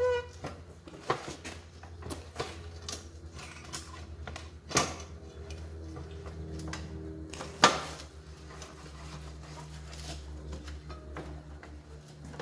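A curved steel panel cut from a propane tank being handled on a wood-topped workbench: scattered clanks, taps and scrapes of metal, with two louder knocks around the middle, over a steady low hum.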